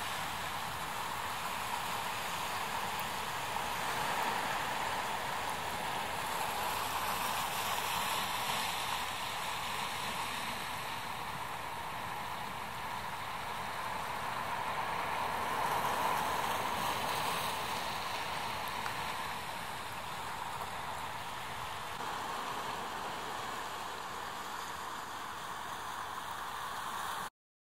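Ocean surf breaking and washing on a rocky shore: a steady rushing that swells and eases off every several seconds, cutting off suddenly near the end.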